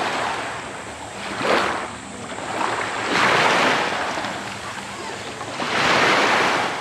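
Small waves washing up onto a sandy beach, the wash swelling and fading three times.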